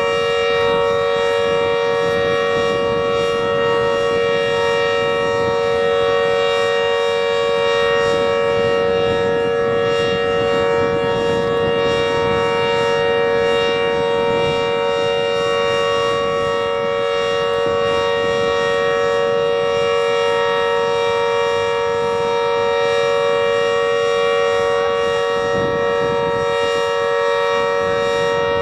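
Emergency alert alarm: a loud, siren-like tone of several pitches sounding together, held steady without any rise, fall or break.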